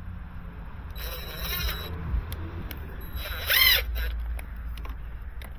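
Plastic zip ties being pulled tight: two short zipping rasps, the second louder, over a steady low hum.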